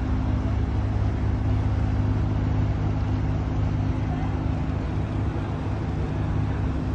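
Boat engine running with a steady low drone, heard from on board.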